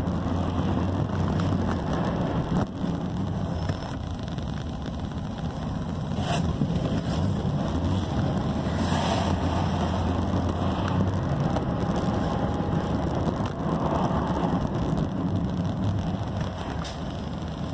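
Car running along a road, heard from inside the cabin: a steady low engine drone under even tyre and road noise.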